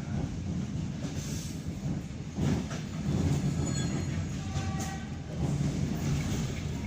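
ED9M suburban electric train running along the track, heard from inside the carriage: a steady low rumble with the wheels knocking over rail joints. A faint high-pitched wheel squeal comes in around the middle.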